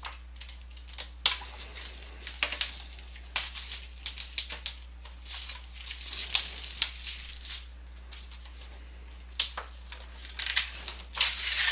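Cardboard packaging of a trading-card box being handled and torn open: irregular crinkling and ripping, densest and loudest near the end.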